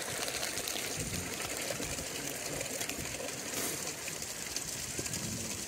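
Steady rush of running water from the hot spring.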